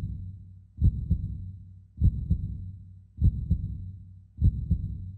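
Heartbeat-like sound effect: a low double thump repeating about every 1.2 seconds, each fading out before the next.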